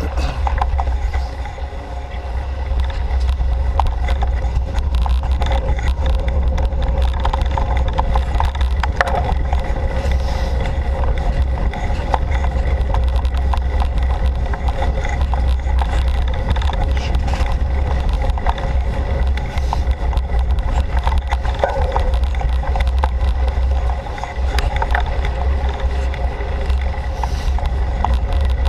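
Mountain bike rolling fast along a dirt forest trail, heard through a GoPro Hero3: a steady low wind-and-vibration rumble with many small rattles and clicks from the bike and the trail surface, easing briefly twice.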